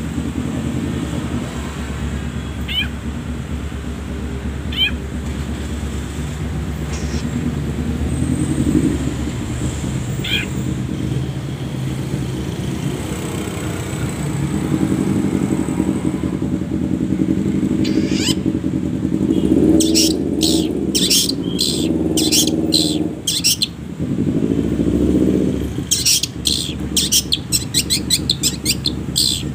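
Long-tailed shrike (cendet) song: a few short high chirps, then fast chattering strings of sharp notes from about two-thirds of the way through, over a steady low engine-like hum.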